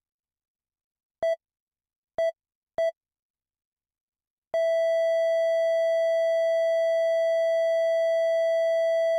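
Heart-monitor beep sound effect: three single electronic beeps at uneven gaps, then about halfway through a long unbroken tone at the same pitch, the flatline that signals a stopped heart.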